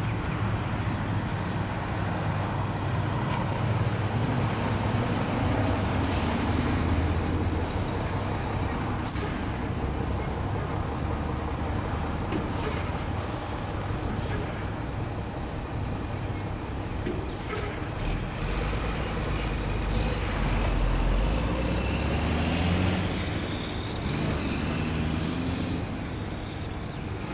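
EMD SW1500 switcher's diesel engine working as the locomotive approaches hauling a train of tank cars: a steady low rumble whose pitch rises and falls, swelling about two-thirds of the way in. A few faint high chirps come through in the middle.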